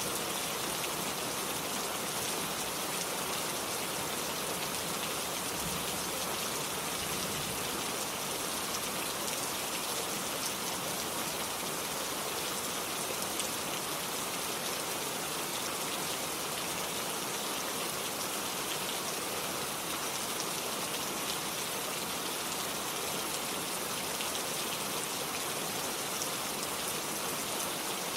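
Steady rain falling, an even hiss of many drops hitting surfaces, with fine pattering and no let-up.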